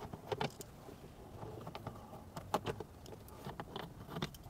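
Faint, irregular clicks and ticks of a Phillips screwdriver backing screws out of a plastic dashboard panel.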